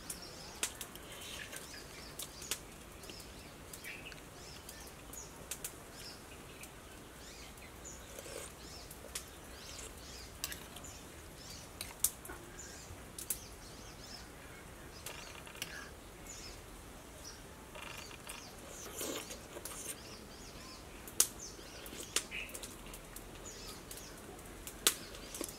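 Eating sounds: a metal spoon clinking and scraping in a clay pot of soup, heard as a scatter of faint, sharp clicks.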